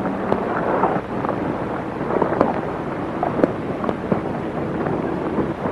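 Steady hiss and rumble of an old film soundtrack, with scattered irregular knocks and thuds.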